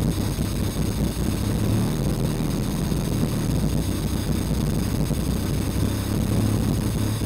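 B20-swapped Honda Civic's four-cylinder engine idling steadily through a DC header, test pipe and Yonaka exhaust, heard at the tailpipe as a low, even drone.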